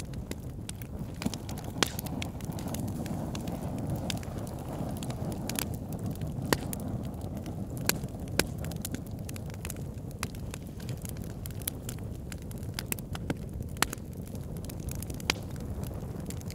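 Wood fire crackling in a fireplace: a steady low rumble with sharp pops and snaps scattered irregularly through it, a stronger pop every second or two.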